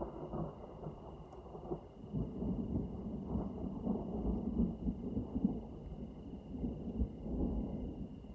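Low, irregular rumbling that swells and fades, loudest in the middle of the stretch, with a faint steady high tone underneath.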